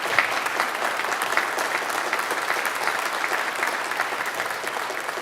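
Congregation applauding, many hands clapping at a steady level.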